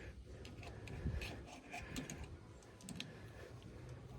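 Faint, irregular small metallic clicks and taps as a steel cotter pin and pliers are worked at the wheel axle of a snowblower.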